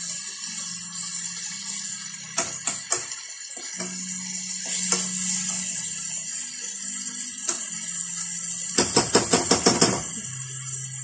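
Diced vegetables sizzling as they sauté in a metal pot, with a spoon clinking against the pot a few times. Near the end comes a quick run of about eight metal taps.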